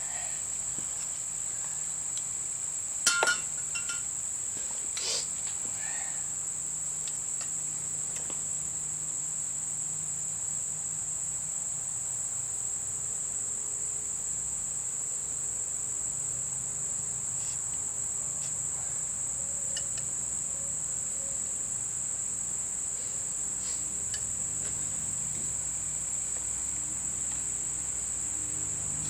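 Steady high-pitched insect trill, typical of crickets, with a few sharp clicks or knocks, the loudest about three seconds in.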